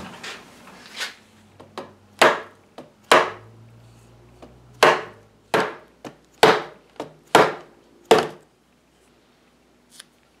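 Wooden knocks and clunks from a mahogany chair frame being handled and knocked against a workbench. There are about a dozen sharp, irregularly spaced knocks over roughly eight seconds.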